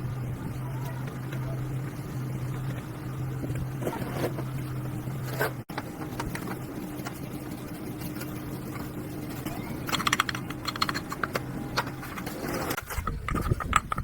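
A motor running with a steady low hum, with a flurry of sharp clicks about ten seconds in.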